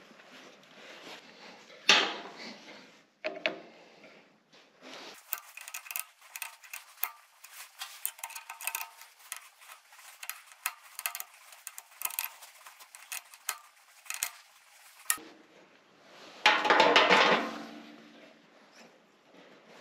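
Metal tools and parts clinking and tapping: a sharp knock about two seconds in, a long run of small quick clicks, and a louder ringing metallic clatter near the end.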